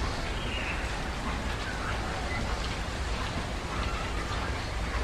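Eating sounds: fingers mashing and mixing soft, wet rice on steel plates and mouths chewing it, a wet crackling over a steady background hiss.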